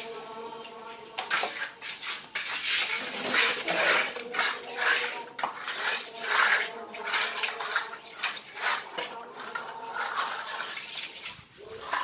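Metal tools clinking and scraping while wet cement screed is levelled with a metal straightedge: a run of short, sharp clinks and scrapes at irregular intervals.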